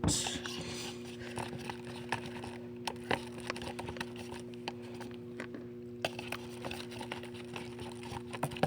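Glue-and-detergent slime being mixed by hand in a bowl: scattered small clicks and sticky squelches, over a steady low hum.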